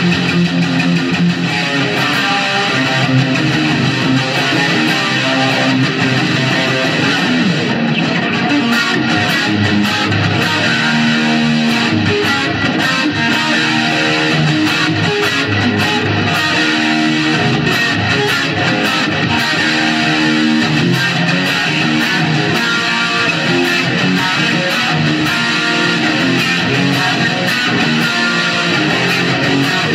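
High-gain electric guitar played without a break through an EVH 5150 Iconic 1x10 combo on its red channel, with a Boss CE-5 stereo chorus and delay in the effects loop and the chorus's second output feeding a clean Marshall MG15 combo.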